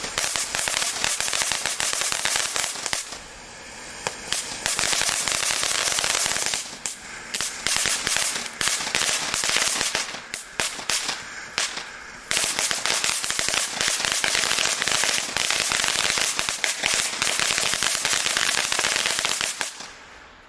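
Happy Boom Peacock Fountain ground firework burning, spraying sparks with dense, continuous crackling. The crackle eases to a quieter hiss a few times and fades as the fountain dies down near the end.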